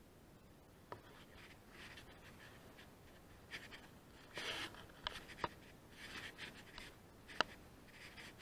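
Hands scraping and scooping loose sand in short, faint scratchy strokes, with a few sharp clicks scattered through.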